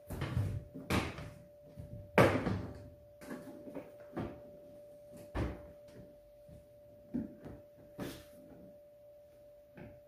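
Plastic window-kit slider panel of a portable air conditioner being wedged into a sliding glass door's gap: a series of knocks, bumps and scrapes of plastic against the door and its frame, the loudest about two seconds in. A faint steady hum sits underneath.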